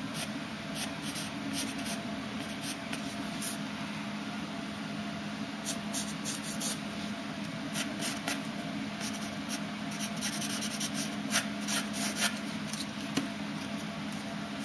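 Graphite pencil scratching across paper in short, quick strokes, coming in bursts with brief pauses, as hair spikes are sketched.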